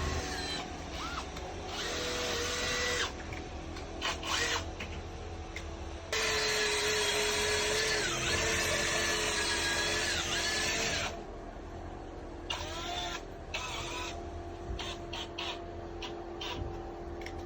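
Power drill running in several bursts with a whining motor note, the longest lasting about five seconds in the middle, its pitch dipping briefly under load.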